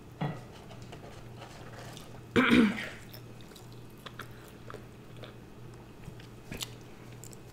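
Person chewing food close to the microphone, with soft scattered mouth clicks over a faint steady hum. About two and a half seconds in there is one short throaty vocal sound.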